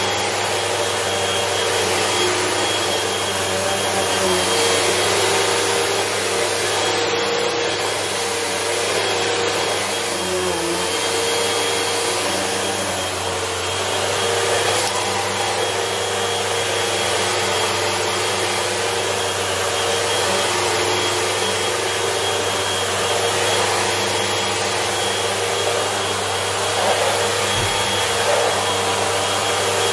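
Bagless upright vacuum cleaner running steadily, pushed back and forth over a rug: a constant rush of air with a thin high whine from the motor, swelling slightly with each stroke.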